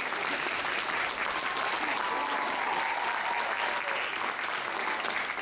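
Audience applauding steadily, with many hands clapping at once.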